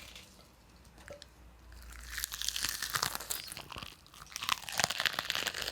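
Crisp lettuce being bitten and chewed, a run of sharp crunches starting about two seconds in. The crunching serves as a stand-in for bones cracking.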